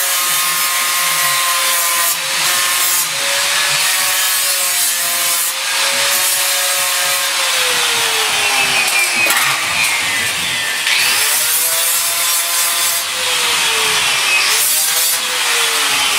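Electric angle grinder running continuously and cutting into steel bodywork, with a loud rasping grind. Its motor whine sags in pitch about halfway through and again near the end as it is pressed hard into the metal, then picks back up.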